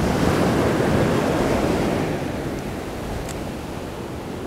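Surf breaking and washing up a sandy beach: a steady rushing wash, louder for the first couple of seconds and then easing off.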